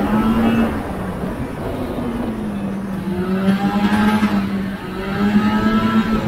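Vintage two-stroke snowmobile engine running under way, heard from aboard the sled; its pitch eases off briefly, then climbs again with rising revs about three seconds in and once more near the end.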